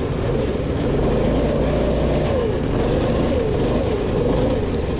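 Car engine running hard, its pitch rising and falling again and again as it revs up and eases off, over a heavy low rumble.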